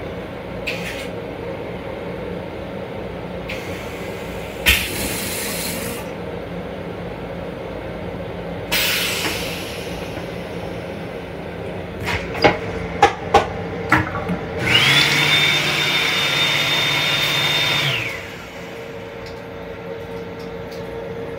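Flush cycle of a railcar's stainless steel toilet: hissing bursts of rinse water into the bowl, a quick run of sharp clicks, then a motor whirring with a steady whine for about three seconds before cutting off, over the train's constant low hum.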